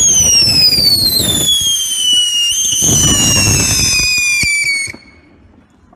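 Whistling ground firework going off: a loud shrill whistle that falls slowly in pitch over about five seconds over a rushing hiss with a few cracks, then cuts off abruptly.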